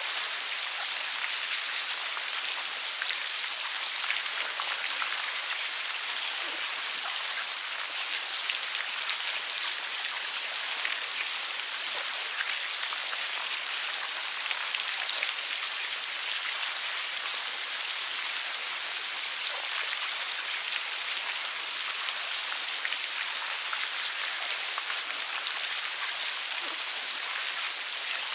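A dense mass of fly maggots wriggling against one another and through sawdust, making a steady fine crackling rustle of many tiny clicks.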